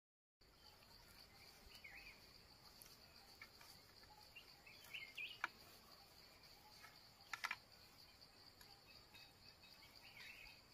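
Faint forest ambience: a steady high insect drone with a few short bird chirps. Two sharp knocks stand out, about halfway through and a couple of seconds later, from hands handling a green bamboo-tube trap.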